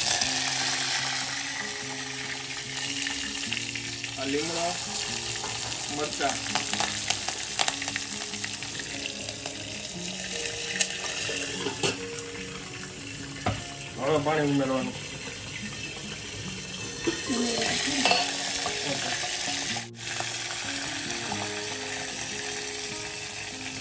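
Green chillies sizzling in hot oil with mustard and cumin seeds, a tempering (vaghar) in a steel pot. The sizzle flares up loudly near the end as water goes into the hot oil.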